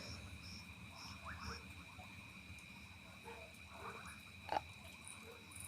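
Faint frogs and insects calling: a steady high ringing with short, evenly repeated chirps. A single sharp click comes about four and a half seconds in.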